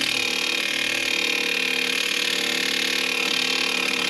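Impact gun hammering steadily on the bolt of an on-car wheel bearing press, pulling a stubborn front wheel bearing out of its hub; the mechanic hears the gun starting to lock up against the resistance.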